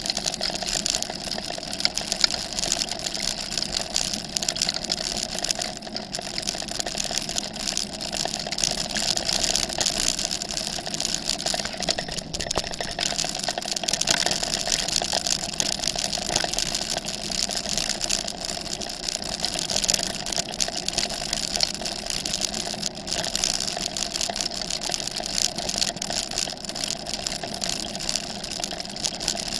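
Steady travel noise from a camera fixed to the handlebars of a vehicle riding a gravel forest track: a constant rattle and rush of tyres on gravel with a steady mid-pitched hum.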